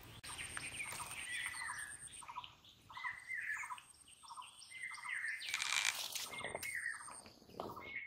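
Birds chirping: a short call is repeated over and over, roughly every half second to second. A brief scuffling noise comes about two-thirds of the way through.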